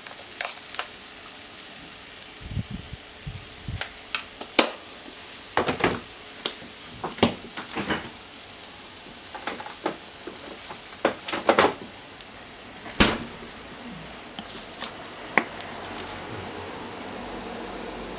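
Minced chicken sizzling in a frying pan over a gas flame: a steady hiss with many scattered sharp clicks and a few low knocks.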